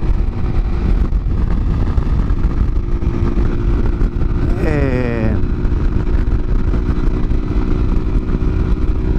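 Heavy wind buffeting a helmet microphone on a motorcycle riding into a headwind at about 110 km/h, with the engine running steadily at high speed underneath. About five seconds in, a brief tone sweeps quickly downward in pitch.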